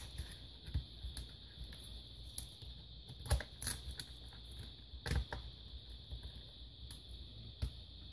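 Irregular clicks and taps of plastic laptop case parts being handled and pressed into place during reassembly, the sharpest a little over three seconds in and about five seconds in.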